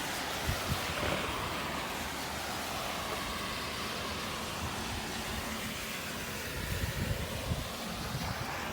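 Steady rushing noise of the typhoon-swollen river and storm wind, with gusts buffeting the microphone about a second in and again near the end.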